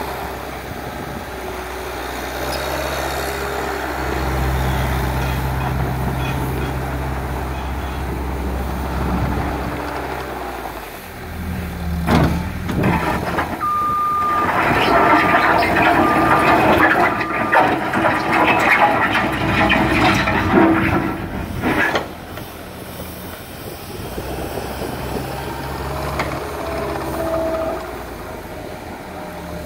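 Cat 299C compact track loader running on its diesel engine while it turns slowly on gravel. It starts as a steady low hum, then grows louder and rougher for about ten seconds in the middle, with a short whine near the start of that stretch, and settles back to the steady hum.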